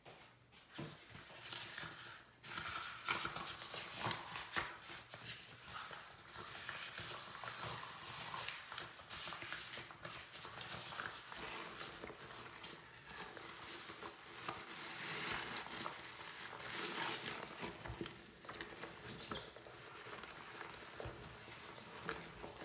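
Rubber-gloved hands squeezing and stirring a sponge through thick, foamy paste in a sink: continuous wet squishing and squelching, thick with small crackling clicks. It starts about a second in.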